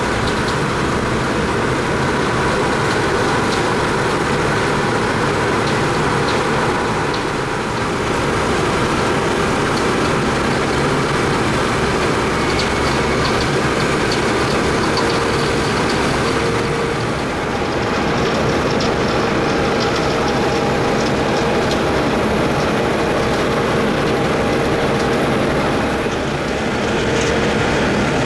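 Wirtgen W100 Fi cold milling machine at work, its 325 hp diesel engine and cutting drum grinding up road asphalt in a steady, dense mechanical din. A faint whine comes and goes over it.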